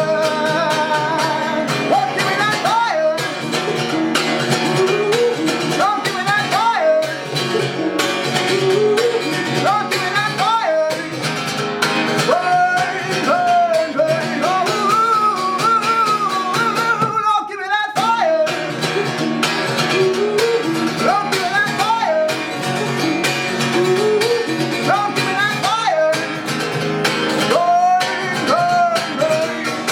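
Live blues-rock music: strummed guitar under a wordless sung melody that bends up and down, with a brief break about two thirds of the way through.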